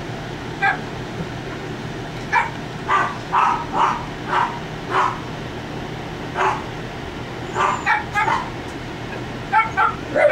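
Italian Greyhound puppies about three and a half weeks old giving short, high puppy yips and tiny barks, about a dozen spread out, coming in a quicker run near the end.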